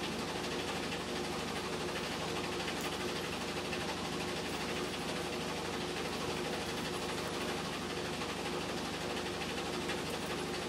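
Steady low mechanical hum with a held low tone, unchanging throughout: background machine or room noise.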